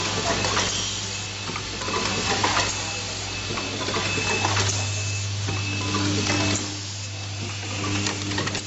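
Automatic pencil sharpener assembly machine running: a vibratory bowl feeder hums steadily while pneumatic actuators clack and hiss every second or two as the rotary table indexes parts.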